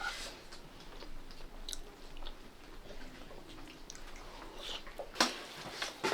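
A person chewing food, with small wet mouth clicks and a sharper click about five seconds in.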